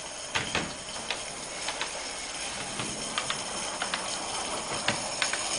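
Gas-fired live-steam garden railway locomotive running very slowly under load: a steady hiss with irregular light clicks.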